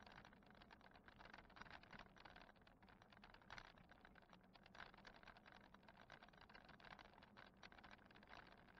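Faint, rapid, irregular rattling and clicking as an e-bike and its mounted camera jostle over an asphalt road.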